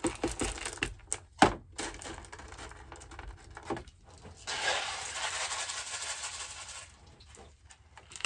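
LECA expanded-clay pebbles poured from a plastic nursery pot into a plastic planter. Scattered clicks and knocks come first, with one sharp knock about a second and a half in. From about four and a half seconds in comes a steady rattling pour lasting a couple of seconds.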